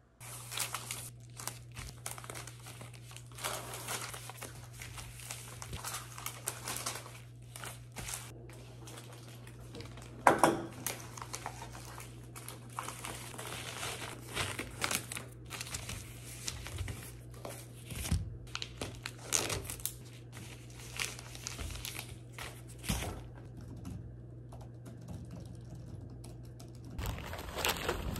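Crinkling and rustling of something being handled, in irregular crackles, with one louder crackle about ten seconds in. A steady low hum runs underneath and stops near the end.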